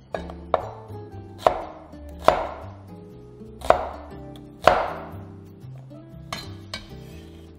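Chinese cleaver chopping red shallots on a wooden cutting board: about eight sharp chops at uneven intervals, the strongest in the middle. Soft background music underneath.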